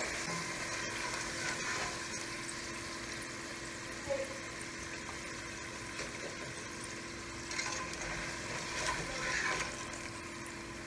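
Thin potato slices deep-frying in a pot of hot oil, a steady bubbling sizzle, with a few brief louder swells as a slotted spoon stirs the chips and lifts them out of the oil.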